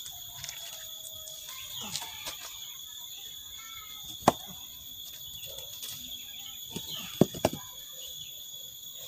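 Rubble stones being set into a mortared stone foundation wall by hand, giving a few sharp knocks. The loudest knock comes about four seconds in, and two more come close together near the end.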